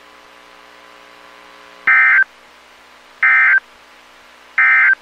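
Three short bursts of NOAA Weather Radio's SAME digital data tones, each about a third of a second and about 1.4 s apart: the end-of-message code that closes a broadcast warning. A faint steady hum lies beneath.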